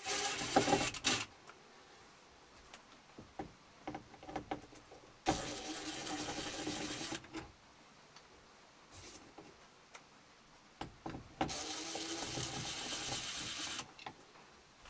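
Small cordless power driver running in three separate bursts, backing out the three screws that hold a wall thermostat into wood paneling, with small clicks and handling sounds between bursts.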